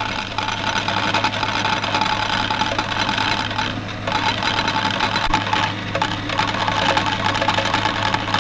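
Poker machines clattering rapidly and continuously, their mechanisms ticking with coins tinkling, over a steady low hum.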